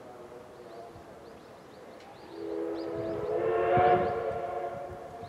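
Steam locomotive whistle (C58 363) sounding one long blast of about three seconds, several steady tones together, swelling to its loudest about four seconds in and then fading.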